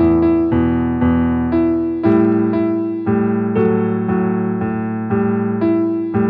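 Background music: an electric piano playing a slow melody, about two notes a second, each struck and fading.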